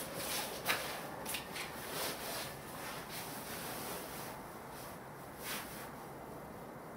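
Handling noise on a handheld video camera: short rustling and rubbing scrapes through the first three seconds, with one sharp click near the start and another scrape just after five seconds, over a steady hiss.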